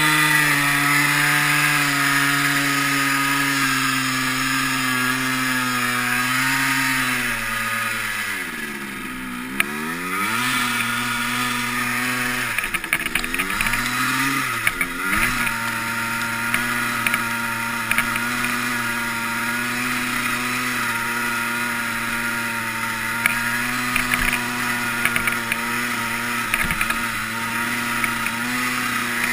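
Yamaha Blaster's two-stroke single-cylinder engine held at high revs. Its pitch drops and climbs back about eight to ten seconds in, and again a few quick times around thirteen to fifteen seconds in, then it runs steadily at riding speed with scattered sharp ticks.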